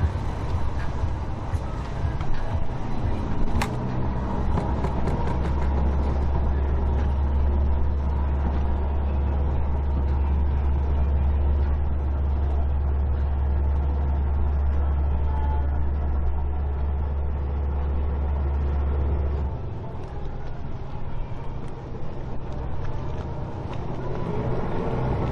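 Motor yacht engines running as the boat cruises past, a steady low drone over water and wake noise. The drone drops away suddenly about three-quarters of the way through.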